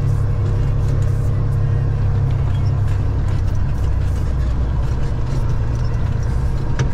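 Heavy truck's diesel engine running steadily at low revs, heard from inside the cab as the prime mover moves slowly. A single brief click near the end.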